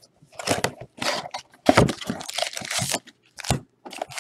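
Plastic wrapping on a trading-card pack or box being cut open with a blade and torn, in a run of irregular crinkles and rips.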